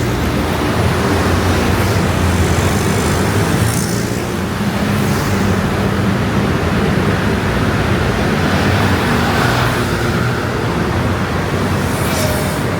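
Dense stream of motor scooters running past in heavy traffic, a steady, loud mass of small engines.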